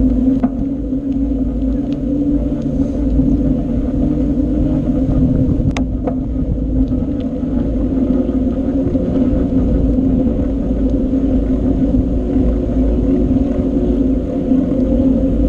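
Steady low rumble and hum of a bicycle on the move, with one sharp click about six seconds in.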